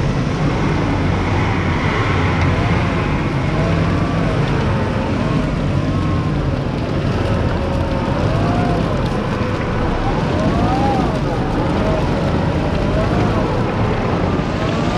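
Off-road vehicle engines running under load during a mud recovery, a bogged pickup being pulled out on a tow strap. The engine pitch rises and falls several times as the throttle is worked, with wind noise on the microphone.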